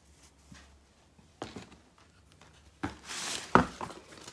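Handling noise as a shoe is picked up and shown: a small knock about a second and a half in, then a brief rustle and a sharp knock near the end.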